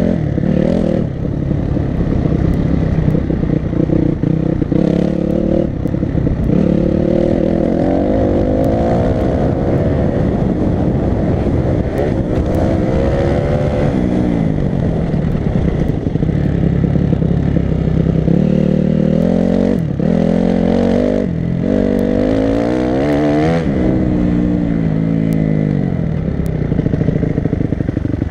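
Enduro dirt bike engine ridden hard, its pitch climbing as it revs and dropping back again and again as the throttle is rolled off and gears change. There is a brief cut in the engine sound about two-thirds of the way through, and the odd sharp tick of rattle.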